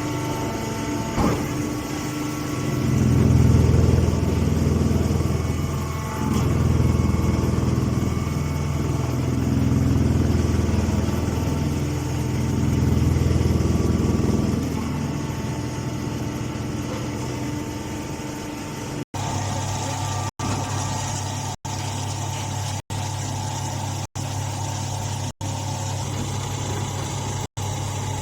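Straw baling machine running with a steady low mechanical hum that swells louder several times in the first half. In the second half the sound cuts out for an instant about once a second.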